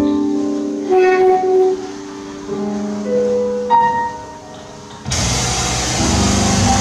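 Live free-improvised music with electronic noise: sustained held tones at shifting pitches that thin out and grow quieter. About five seconds in, a dense wash of noise comes in suddenly.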